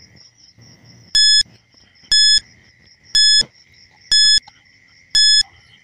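Quiz countdown-timer sound effect: five short electronic beeps, about one a second, over a faint steady high whine.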